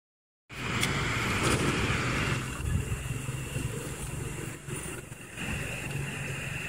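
Steady static hiss from a Grundig G2 Reporter radio's speaker as it is tuned through empty frequencies around 64 MHz with no station coming in. It starts about half a second in.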